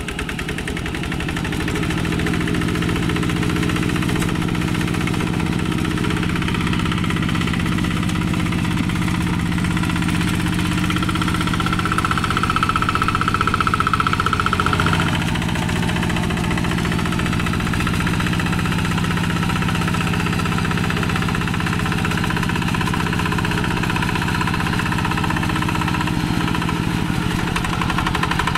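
Single-cylinder diesel engine of a walk-behind two-wheel hand tractor running steadily under load as it drags a rake through wet paddy mud, picking up over the first couple of seconds. A higher steady whine joins it for a few seconds midway.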